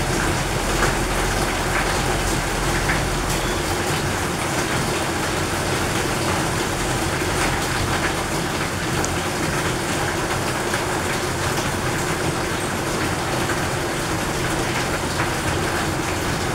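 Heavy rain pouring down, a steady dense hiss of drops.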